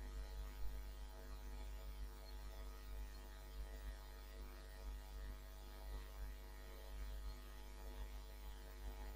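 Faint, steady electrical hum under a low hiss: the recording's background noise while nobody speaks.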